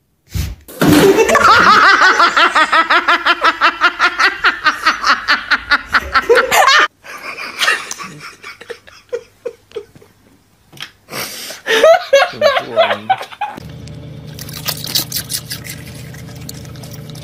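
A person laughing hard in quick, even ha-ha-ha pulses for about six seconds. Near the end comes a steady low drone from a car's cabin.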